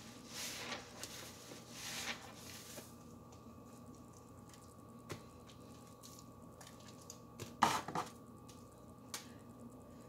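Wet sponge squeezed in soapy dishwater: a few short squishes of water and suds, the loudest cluster about three-quarters through, over a faint steady hum.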